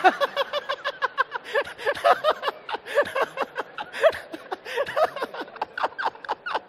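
A man laughing hard into a close microphone: a long unbroken run of short pitched 'ha' bursts, several a second.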